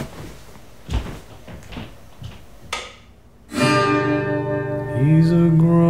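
A few faint knocks and rustles, then about three and a half seconds in an acoustic guitar and a man's singing voice start loudly, holding long notes that step up in pitch near the end.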